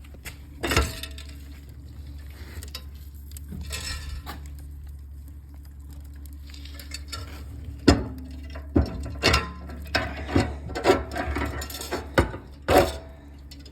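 Scattered clinks and sharp knocks of hard objects being handled, coming more often and louder in the second half, over a steady low hum.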